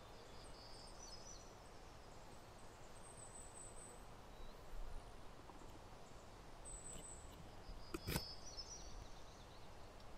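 Faint outdoor ambience, with a few short high-pitched chirps scattered through it and a single sharp click about eight seconds in.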